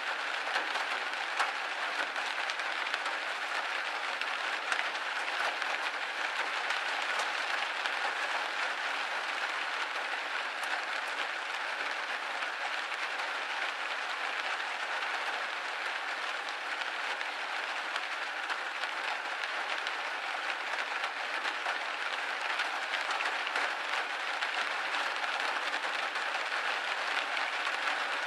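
Steady rain on a window pane: a dense, even hiss of drops with many small ticks of single drops hitting the glass.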